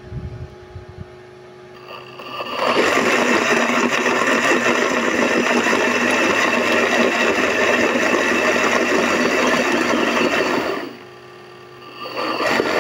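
Homemade 12 V DC blender (an AC blender converted to run on a DC battery) running, blending ginger in plenty of water. A few light knocks come first; the motor comes up to speed about two and a half seconds in and runs steadily for about eight seconds. It cuts off, then runs again briefly near the end.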